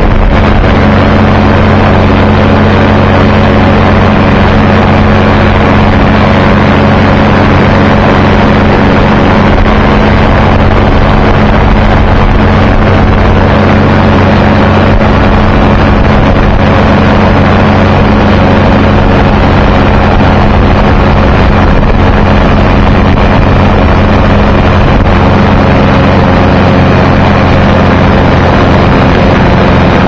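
Loud, steady drone of an aircraft engine in flight, one constant pitch throughout, with wind rushing over the microphone.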